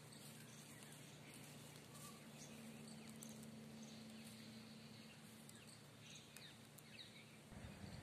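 Near silence: faint outdoor ambience with a few faint, distant bird chirps over a low steady hum. A low rumble comes in just before the end.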